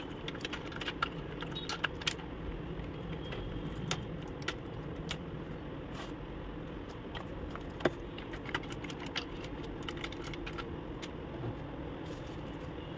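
Scattered light clicks and taps of plastic printer parts being handled: the ink dampers being seated on an Epson L130's print head and its external ink tank unit being moved, with one sharper knock about eight seconds in. A steady low hum runs underneath.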